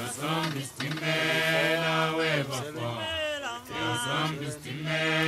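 Male voices chanting a slow sung melody in long held notes with short breaks between them.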